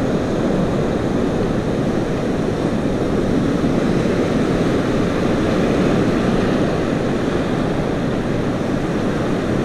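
Surf breaking and washing up on a sandy beach: a steady rushing noise with no distinct events.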